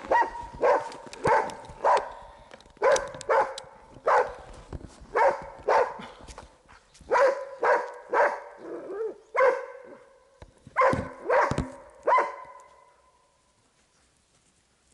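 A hunting dog barking in a steady series of about twenty barks, one to two a second, at a sable treed up a larch, holding it for the hunter. The barking stops about twelve seconds in.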